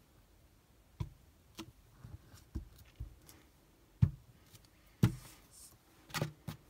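A clear acrylic stamping block knocking down onto an ink pad and onto cardstock as a fruit stamp is inked and stamped again and again: about six separate short thumps, the two loudest about four and five seconds in.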